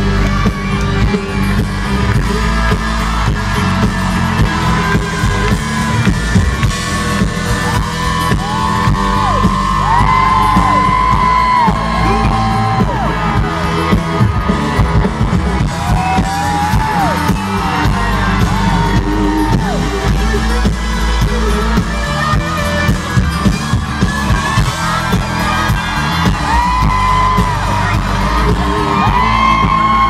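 A live country band plays loudly through a concert sound system, heavy on bass and drums and heard from within the crowd. Fans whoop and yell over it, with wavering high cries recurring from about a quarter of the way in.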